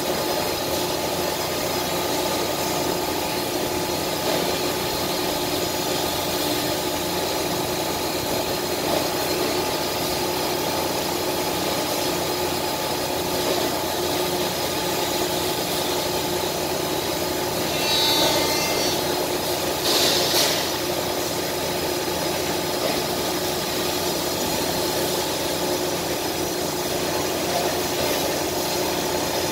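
Thermwood five-axis CNC router running: a steady machine hum with several constant tones from the spindle and its drives. A little past halfway come two brief louder sounds, a short high whine and then a short hiss.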